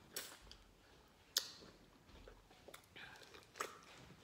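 Close, faint mouth sounds of a person eating a raw lemon wedge: biting, sucking and wet chewing, with a few sharp clicks and smacks, the sharpest about a second and a half in.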